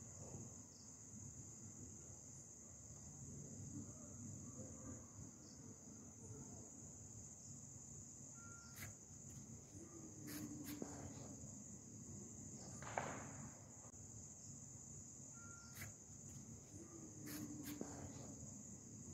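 Crickets chirring in a steady, high-pitched drone. A few faint clicks and knocks come through, the loudest about 13 seconds in.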